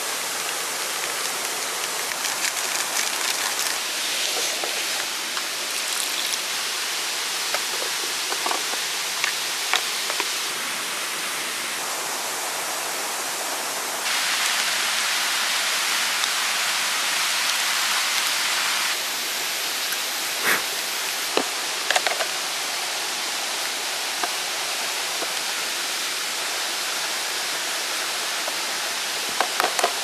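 Steady rush of a mountain stream flowing over rocks, louder for a few seconds midway. A few short clicks and knocks stand out above it about two-thirds through and again near the end.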